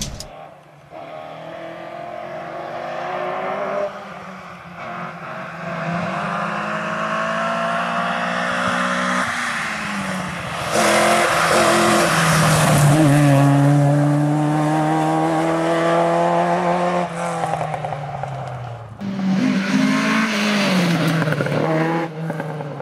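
Opel Kadett GTE Group 2 rally car's four-cylinder engine revving hard at full throttle, pitch climbing and dropping again and again through gear changes as the car comes past at speed. It is loudest about halfway through, and near the end the revs fall away for a corner and then climb again.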